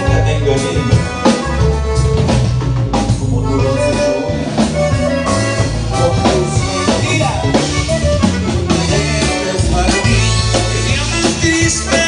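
Live amplified band playing: electric bass and drum kit carry a steady beat under button accordion and guitar.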